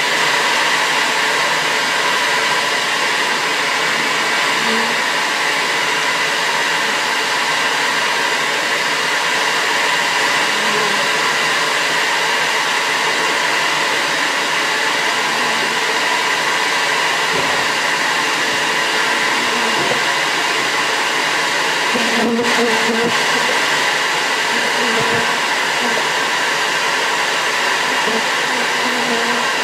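Bee vac's suction motor running steadily, a loud even rush of air and motor, with short buzzes of bees flying close and a few knocks about 22 seconds in.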